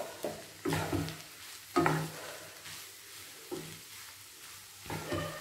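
Wooden spatula stirring and tossing noodles and rice in a non-stick pan, making a handful of separate scraping strokes against the pan over a faint sizzle of frying.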